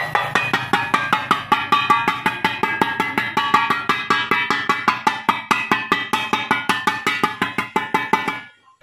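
Rapid metallic tapping, about six strikes a second, as a metal tool beats the dented bottom of a rice cooker's metal inner pot, each strike ringing. The bottom is being knocked flat so it sits evenly on the heating plate; the tapping stops near the end.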